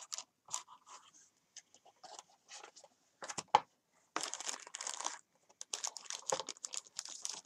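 Clear plastic packaging bags crinkling and rustling as boxed accessories are handled, with scattered light clicks and one sharper knock about three and a half seconds in. The longest stretches of crinkling come about four seconds in and again near the end.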